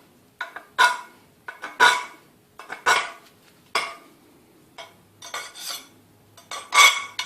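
A hand file deburring the freshly cut end of a bicycle fork's steel-or-alloy steerer tube: scraping strokes about once a second, each leaving the tube ringing.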